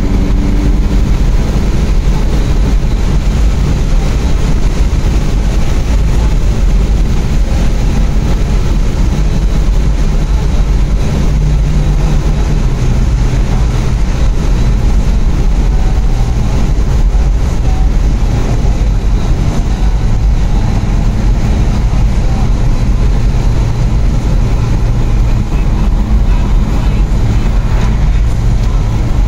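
Inside a car's cabin while driving: a steady deep rumble of engine and road noise, the engine note drifting slowly up and down.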